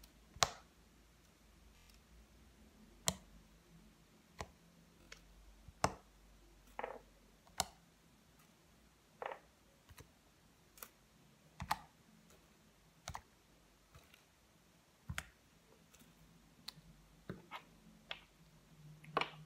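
Faint, scattered clicks and small pops, roughly one a second at irregular intervals, from fingers poking round sequins into soft homemade slime.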